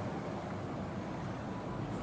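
Steady low rumble of lorry engines and traffic, with no horn sounding.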